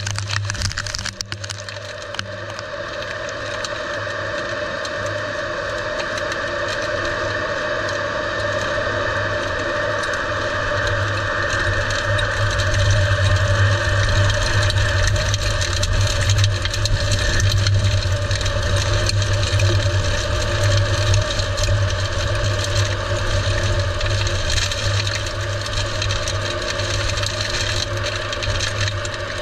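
Wind of an EF-3 tornado rushing over an in-situ tornado probe's microphone: a dense, steady rumble with constant rattling, cracking and debris and rain strikes. It builds up about ten seconds in and eases a little near the end.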